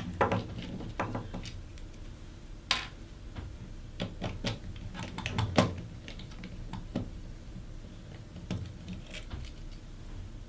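Irregular light clicks and taps of small metal parts as a Phillips screwdriver works the body screws and clamps off an industrial joystick, with the sharpest clicks a little under three seconds in and just past halfway.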